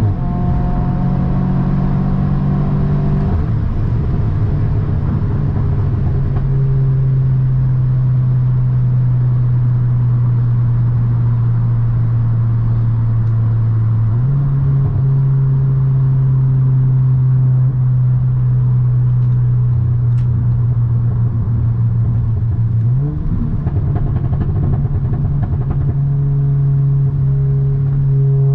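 2017 Audi S3's turbocharged four-cylinder engine and exhaust running at a steady drone under way. The note drops a few seconds in, then steps up sharply twice, near the middle and again later.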